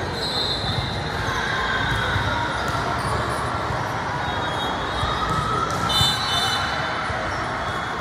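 Echoing ambience of a large sports hall during a volleyball tournament: many voices chattering together, with balls bouncing on the courts.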